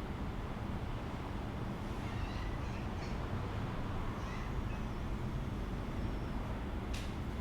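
Steady low ambient rumble, with a few faint high-pitched animal calls about two and four seconds in and a single sharp click near the end.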